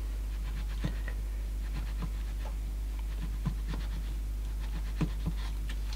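Soft, irregular rubbing and small clicks of a cotton swab scrubbing the rubber pinch roller of a cassette deck mechanism, over a steady low hum.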